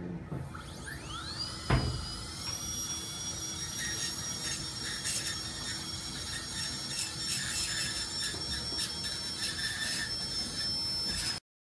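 Dental handpiece spinning up with a rising whine, then running at a steady high whine with scratchy grinding on the teeth, typical of grinding leftover bracket adhesive off after braces are removed. A sharp knock sounds just under two seconds in, and the sound cuts off suddenly near the end.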